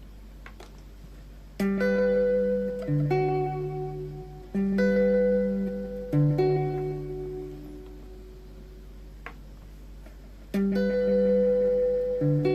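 Guitar chords struck and left to ring, a two-chord figure played three times with pauses between, each chord slowly dying away.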